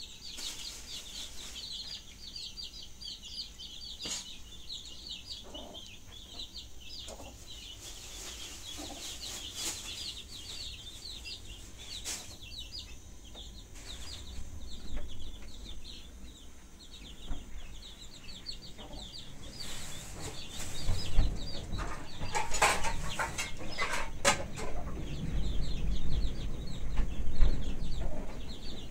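Birds chirping, a dense steady stream of short high chirps, with a few sharp knocks and a low rumble that grows louder in the last third.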